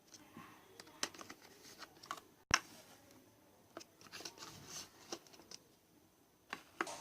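Small clicks and crinkly rustles from handling a toy barrel of slime, with one sharp click about two and a half seconds in.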